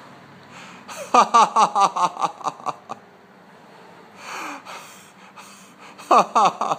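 A man laughing in two bouts of quick, rhythmic ha-ha pulses, one about a second in and another near the end, with a gasping breath drawn in between.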